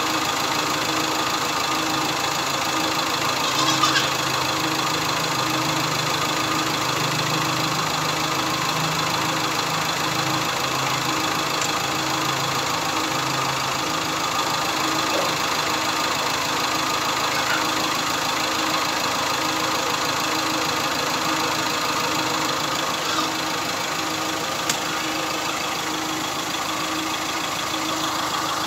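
Chevrolet diesel engine idling steadily with the bonnet open, with a few faint clicks. It is running on test after repair of its turbocharger, intercooler and radiator fan.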